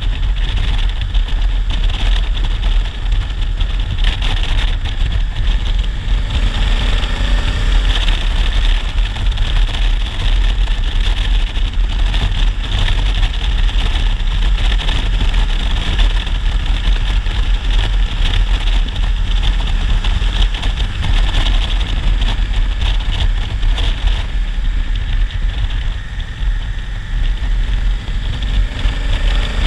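Honda Africa Twin 1000 DCT's parallel-twin engine running under way, mixed with steady wind rush over the microphone. The engine note glides up faintly a few times as the speed changes, around a quarter of the way in and again near the end.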